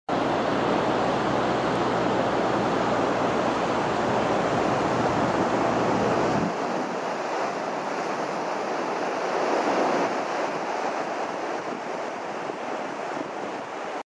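Steady rush of surf breaking on a beach, with wind on the microphone; the low rumble drops away about six and a half seconds in.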